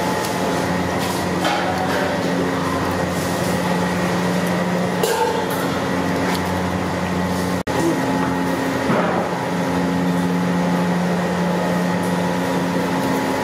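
Steady mechanical hum with a few light knocks and clatter, dropping out for an instant a little past halfway.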